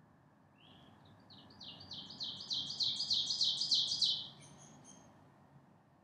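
A songbird sings one song: a series of repeated downward-sliding notes that grows louder over about three and a half seconds, followed by a few short high notes. A faint steady background hiss runs underneath.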